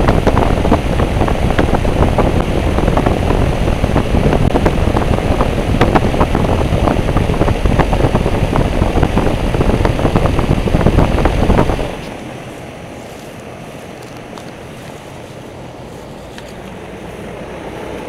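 Lennox heat pump outdoor unit's three-blade fan running, its discharge air blowing straight onto the microphone as loud, crackling wind noise. About twelve seconds in, the level drops suddenly to a steadier, quieter whoosh of the fan.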